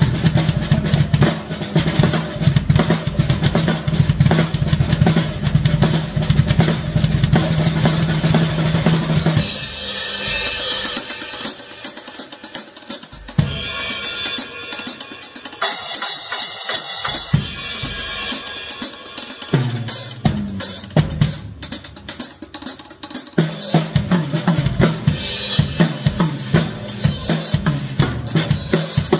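Acoustic drum kit played as a free-form solo: fast, dense strokes on the toms and bass drum. For a stretch in the middle the low drums drop out, leaving lighter, higher hits on the snare and cymbals, and the toms and bass drum come back near the end.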